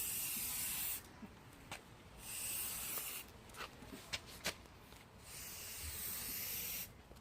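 Aerosol spray paint can hissing in three bursts, each about a second or so long, with a few short clicks between them.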